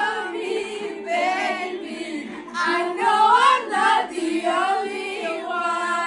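Several teenage girls singing together, their voices overlapping and holding long notes.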